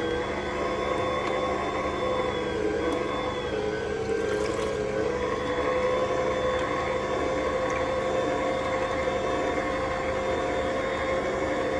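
Vertical slow juicer running steadily: its motor whirs with a hum that wavers slightly in pitch as the auger squeezes fruit and pushes out pulp.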